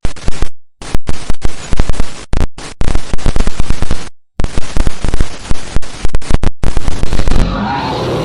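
Loud bursts of rapid cracks and bangs, broken by short silences, giving way near the end to a steadier hiss.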